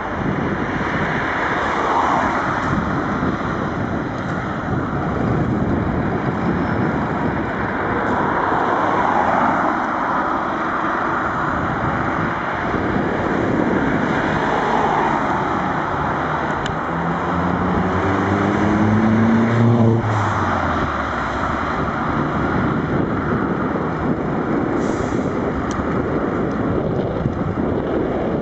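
Fire engine's diesel engine accelerating, its note rising in pitch from about 17 to 20 seconds in, over a steady rushing of road and traffic noise.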